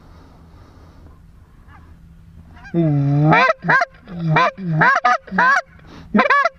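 Goose calls blown hard close by, imitating lesser Canada geese: quiet for the first two and a half seconds, then one longer honk followed by a quick run of short clucks, each one breaking sharply upward in pitch.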